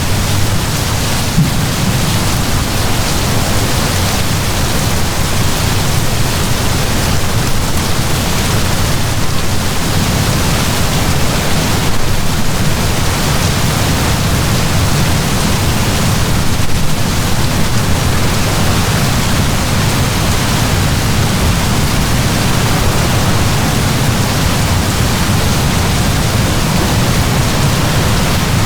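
Heavy rain falling in a steady downpour, an even hiss without separate drops or thunder claps.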